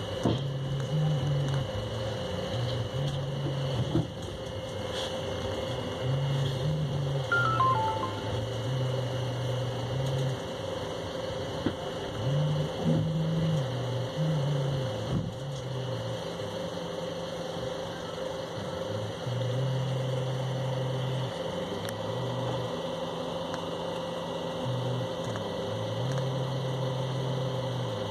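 Passenger train in motion, with a steady running noise heard from on board and a low hum that steps back and forth between two pitches, with a few scattered knocks.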